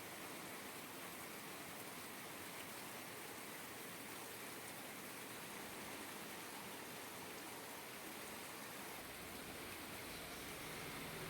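Steady rainfall, an even hiss of rain. About nine seconds in, a low rumble starts under it and grows louder.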